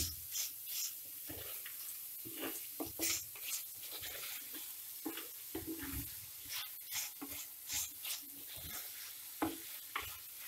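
Wooden spatula stirring and scraping sliced onions around an earthenware pot, in a run of irregular strokes over a faint sizzle of coconut oil as the onions sauté.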